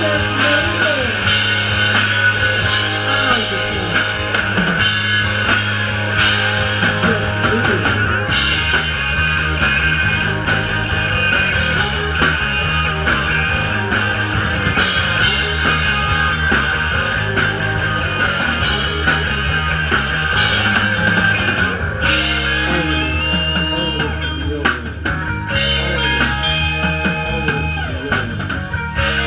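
Rock music played by a band with drum kit, electric guitar and bass guitar, going on steadily with a driving beat.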